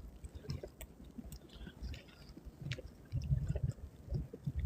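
Footsteps crunching in snow, a scatter of small crackles and squeaks. A low rumble comes and goes, strongest about three seconds in.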